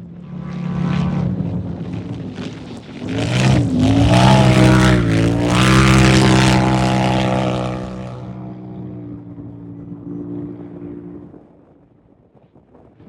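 Off-road race vehicle's engine passing close at speed: the engine note swells to its loudest a few seconds in, with a quick dip and climb in pitch, then fades away over the last few seconds.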